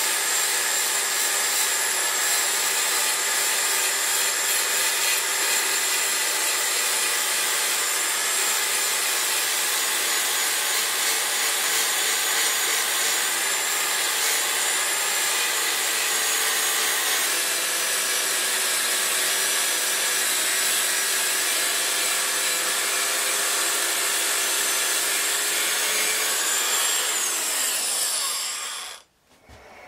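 Handheld narrow-belt sander (power file) grinding the bevel of a steel knife blade: a steady motor whine over the hiss of the abrasive belt on steel. It cuts off suddenly near the end.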